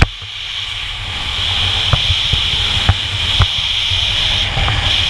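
Wind buffeting the camera's microphone during a parachute descent: a loud, steady rushing noise with a low rumble, broken by a few short knocks near the middle.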